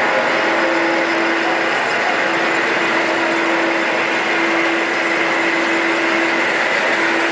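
Children's ride-on miniature train running around its track: a steady mechanical whirring with a constant hum underneath.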